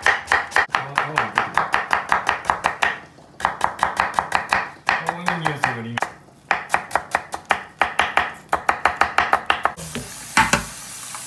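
Kitchen knife cutting a green apple into thin strips on a wooden cutting board: fast, even cuts at about seven a second, in three runs with two short pauses. Near the end this gives way to tap water running into a metal pot, with a single knock.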